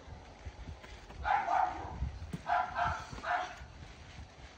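A dog barking several times in quick groups, starting about a second in, over dull thuds of feet bouncing on a trampoline.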